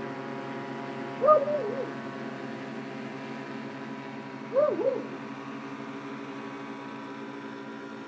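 RCTimer S800 hexacopter hovering, its six 350 kV motors and 15-inch carbon-fibre props giving a steady hum of several tones. Two short, loud calls, each of two or three quick rising-and-falling notes, break in about a second in and again about four and a half seconds in.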